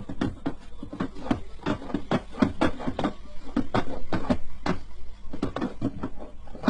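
Quick, irregular wooden knocks and clacks from a cat swatting at wooden pegs that pop up and drop back through the holes of a wooden whack-a-mole box, about three or four knocks a second.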